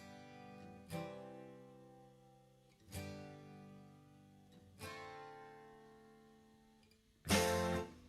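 Background music: guitar chords strummed and left to ring out, one every second or two, with a louder strum near the end.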